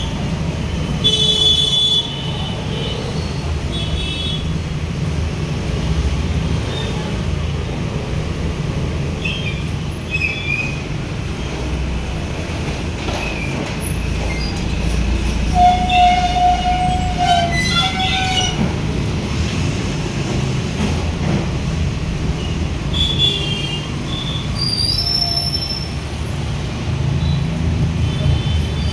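Steady low background rumble, with short high-pitched squeals and tones breaking through now and then.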